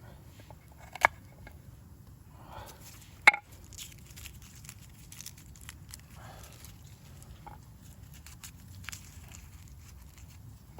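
Hand food-preparation sounds: scattered light ticks and soft rustling, with two sharp knocks about one second and three seconds in, the second the loudest.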